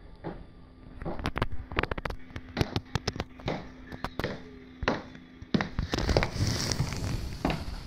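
Footsteps of wedge slide sandals clacking on a hard floor: sharp, irregular clicks of the soles striking down. About six seconds in the steps come close and get louder, with some scuffing.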